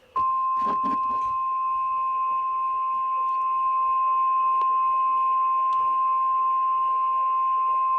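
NOAA Weather Radio warning alarm tone: one steady, loud 1050 Hz tone from the weather radio receiver, signalling that a warning message is about to follow. A few brief noises sound over the tone in the first second or so.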